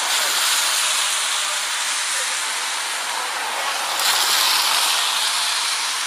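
A steady rushing hiss with hardly any low rumble, getting a little louder about four seconds in.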